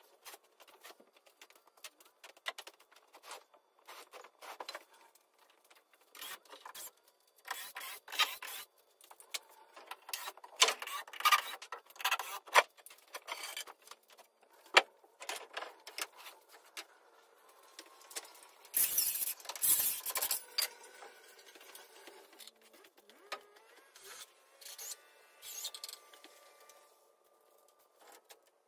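Irregular knocks, clicks and clatter of work on wooden stud-wall framing, with a louder, heavier burst of knocking about nineteen to twenty seconds in.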